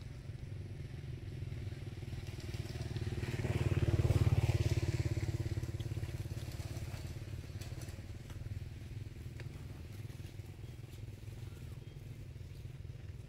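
A motor vehicle's engine: a steady low hum that swells as the vehicle passes, loudest about four seconds in, then fades back.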